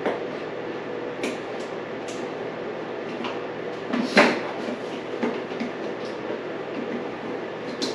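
Scattered clicks and knocks of hands unclipping electrical connectors on a dirt bike's rear subframe, over a steady background hum; the loudest knock comes about four seconds in.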